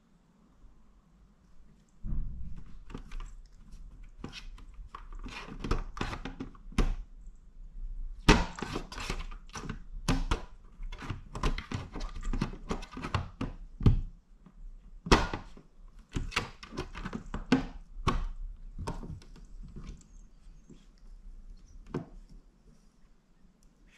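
A cat pawing and clawing at the plastic door and latch of a locked SureFlap Connect microchip cat flap, making irregular knocks, clicks and rattles, densest in the middle. The cat is working the latch to claw the locked flap open.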